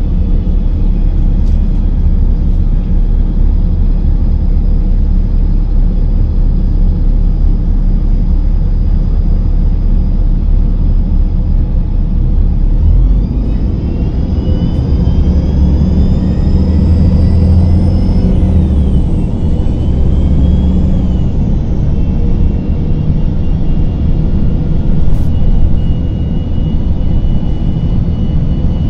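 Cummins ISM 10.8-litre diesel of a 2000 Gillig Phantom transit bus running under way, heard from inside the passenger cabin as a deep, steady rumble. About halfway through, a high whine rises and then falls away.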